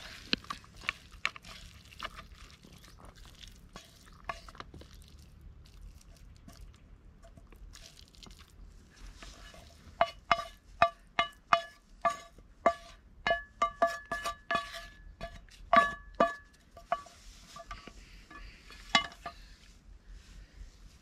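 Wooden spatula scraping and knocking against a non-stick frying pan as noodles are served out, the metal pan ringing briefly with each knock. A few knocks come early, then a quick run of about two a second from about ten seconds in until shortly before the end.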